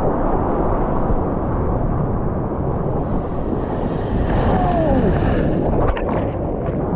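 Water rushing past a board-mounted action camera riding a small wave, with wind buffeting the microphone. Near the end, a burst of splashing as the camera goes into the whitewater.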